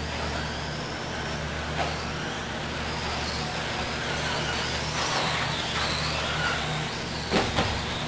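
Electric 1/10 RC buggies' brushless motors whining, rising and falling in pitch as the cars accelerate and brake around the track, over a steady low hum. There is a sharp click about two seconds in and two quick knocks near the end.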